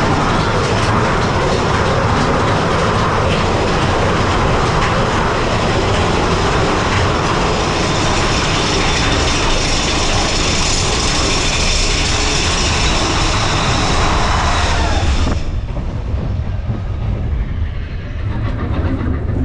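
Mine-train roller coaster running along its track: a loud, steady rumble of the cars and wheels. The higher part of the noise cuts off suddenly about fifteen seconds in, leaving a quieter, lower rumble.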